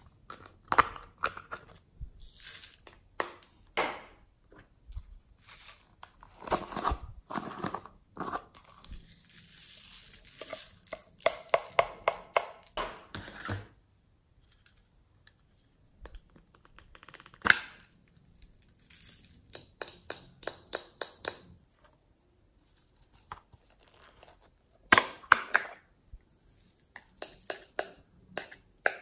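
Small plastic slime containers being handled and opened, with crinkling and tearing of plastic and scattered clicks. Some of the clicks come in quick runs of several ticks a second.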